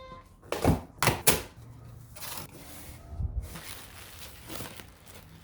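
A cardboard shipping box and its packing being handled and opened: a few sharp knocks about a second in, then rustling and a couple of duller thuds.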